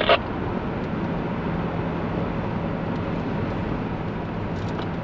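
Cabin noise of a 2018 Coachmen Leprechaun Class C motorhome cruising at highway speed: a steady drone of engine and tyre noise.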